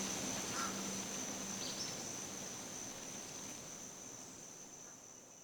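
Insects calling in one steady, high-pitched drone over faint outdoor ambience, fading away gradually.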